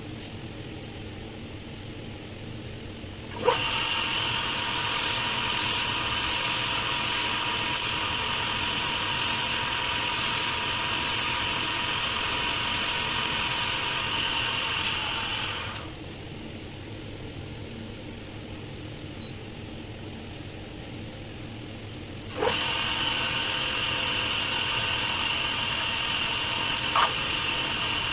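Small wood lathe switched on about three and a half seconds in, running with a steady whine while a turning tool scrapes the wood of a miniature saucer in short bursts. It stops at about 16 seconds and starts again about six seconds later.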